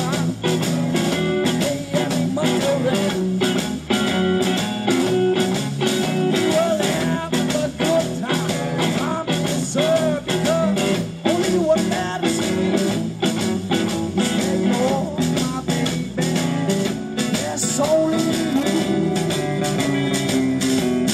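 Live blues-rock band playing: electric guitar, upright double bass and a drum kit, with a male voice singing over the steady beat.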